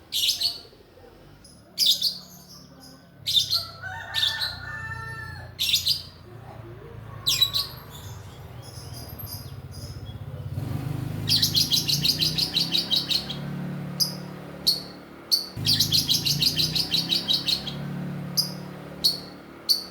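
Young lovebird, about two and a half months old, giving sharp high chirps one at a time, then twice breaking into a long rapid chattering run, the 'ngekek' call. A low steady hum runs underneath.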